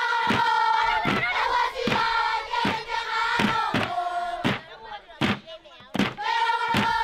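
Music: a group of voices singing a chant-like melody in harmony over a steady beat.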